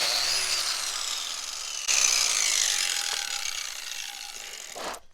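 Handheld power tool, likely a drill with a cleaning attachment, scrubbing paint and grime off the vise's cast surface. About two seconds in it gets louder, then its pitch falls and the level fades until it stops near the end.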